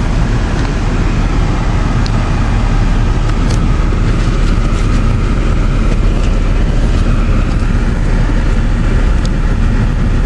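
Car engine idling with a steady low rumble after starting on freshly cleaned battery terminals, with a few faint clicks.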